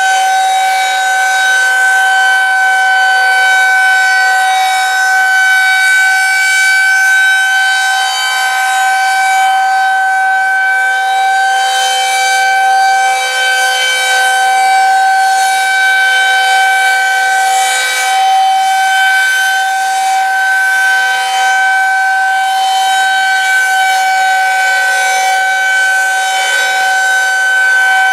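Federal Signal 2001-130AC rotating outdoor warning siren holding a steady tone at full speed: the steady alert signal of a tornado drill. It swells and fades slightly as the rotating horn sweeps toward and away.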